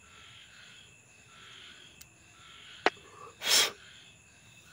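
A single short, sharp puff of breath about three and a half seconds in, just after a light click. Faint insect chirring goes on in the background.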